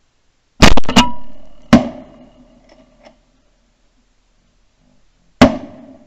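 Shotgun blasts from the boat blind: a quick volley of about four shots in the first two seconds, then one more shot near the end, each ringing out briefly.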